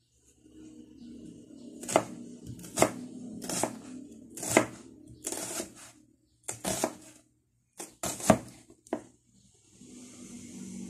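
Kitchen knife slicing an onion on a wooden cutting board: about ten sharp knocks of the blade striking the board, irregularly spaced, each with a little crunch of the onion.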